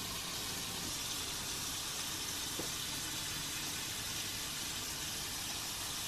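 Shrimp sizzling on a Hamilton Beach indoor searing grill with the lid closed: a steady, even hiss.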